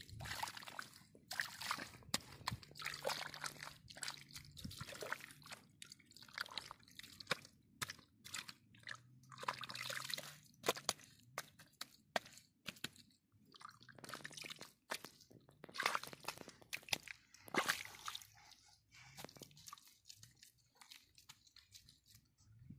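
Water splashing and sloshing irregularly, with many sharp clicks and crackles in between.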